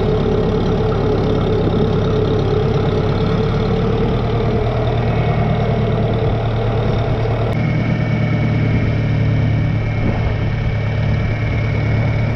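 Tractor engine running steadily, with a sudden change in the sound about two-thirds of the way through, after which a thin steady whine runs over the engine hum.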